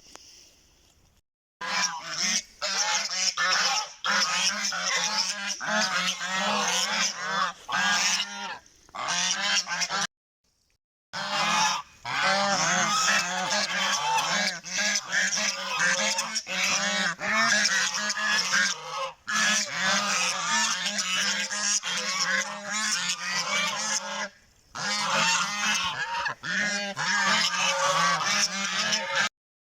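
A flock of geese honking together in a dense, continuous clamour, many calls overlapping; it cuts out suddenly for about a second a third of the way in, then carries on.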